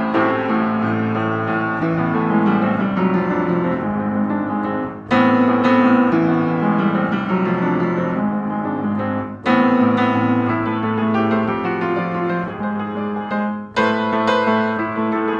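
Background piano music: sustained chords, with new chords struck about every four seconds.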